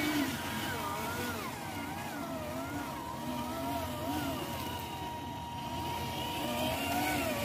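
Radio-controlled model log truck's motor and gears whining as it crawls through mud, the pitch rising and falling about once a second with the throttle, over a steady high tone.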